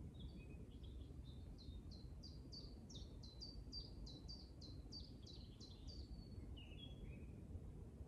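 A small songbird singing in the treetops: a long phrase of short, high, down-slurred notes repeated at a steady pace of about three a second, stopping about six seconds in, with a couple of lower notes after. A faint low rumble runs underneath.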